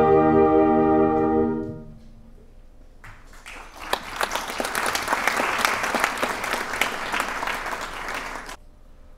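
Concert band holding a final chord that dies away about two seconds in. After a short pause, the audience claps for about five seconds; the applause cuts off suddenly near the end.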